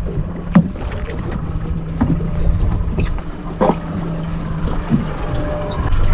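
Pleasure boat underway: a steady engine hum with wind and water noise, and a few short knocks.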